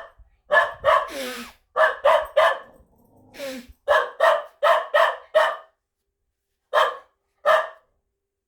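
Cattle dog barking in quick runs of two to five sharp barks, with a pause of a second or more between runs, reacting to a person blowing their nose.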